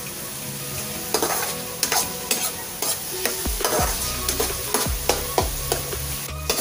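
Chopped tomatoes and onions sizzling in hot oil in a nonstick frying pan, while a metal spoon stirs and mashes them to break the tomatoes down. The frying gives a steady hiss, and the spoon makes repeated scrapes and taps on the pan.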